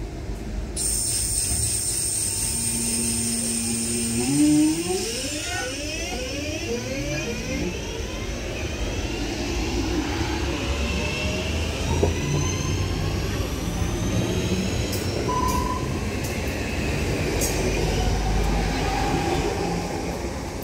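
Class 323 electric multiple unit pulling away, its traction motors whining in a stack of tones that rise steadily in pitch as it accelerates. Under the whine there is wheel-on-rail rumble, and above it a steady high hiss.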